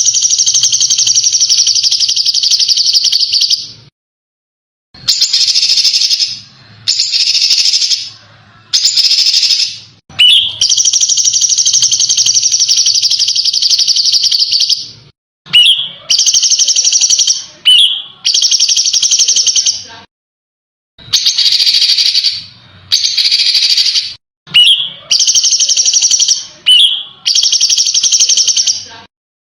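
Small songbird's harsh, dense, high-pitched trills of rapid-fire notes ('tembakan'), about eleven phrases of one to five seconds each. Many phrases open with a short upward sweep, and they are separated by gaps of dead silence. This is edited bird-song tutor audio (masteran) used to teach competition songbirds.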